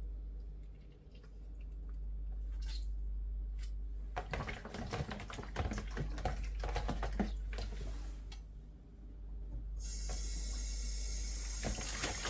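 Kitchen sounds: a run of small clicks and clattering of things being handled, then a water tap running steadily from near the end, over a low hum.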